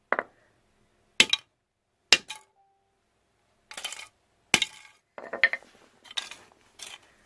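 An 8-pound sledge hammer striking a 3D-printed plastic primer catcher on a floor in a strength test: a series of about eight sharp clinking knocks roughly a second apart, the first few hardest. The catcher holds up under the blows.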